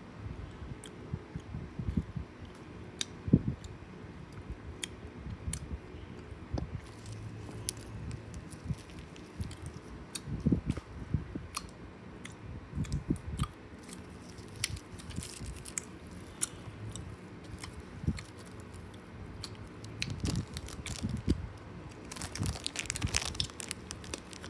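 A person chewing a piece of candy close to the microphone, with irregular clicks and smacks. A rustle near the end.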